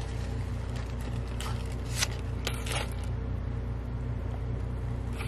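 Steady low hum of a car idling, heard inside the cabin, with a few brief rustles and clicks of handling, around one and a half, two and two and a half seconds in.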